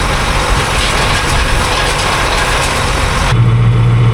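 Hay baler running, its gears and chains clattering, until about three seconds in, when it gives way abruptly to a steady low tractor engine hum.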